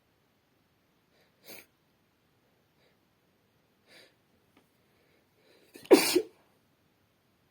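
A woman sneezing once, loudly, about six seconds in, after two short faint breaths.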